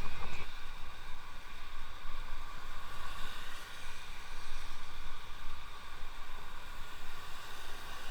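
Wind buffeting the microphone while riding an electric bicycle, a gusty low rumble over road and air rush, with a steady high whine.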